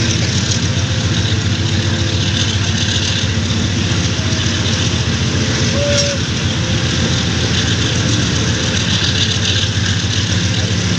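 AGE-30 diesel locomotive no. 6025 running steadily at the head of a moving train, a constant low engine hum heard from just behind it, mixed with the rumble and rush of the train rolling along. A brief faint squeal about six seconds in.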